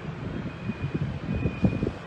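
Wind buffeting a phone's microphone in irregular low gusts and thumps, over street traffic noise. A faint, thin, high steady tone comes and goes twice.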